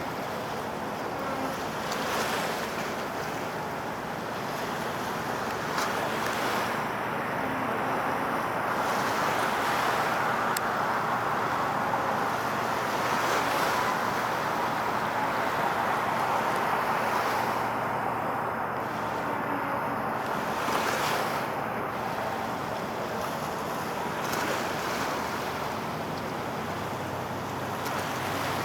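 Steady rushing of wind and sea-water wash, with a few brief gusts buffeting the microphone.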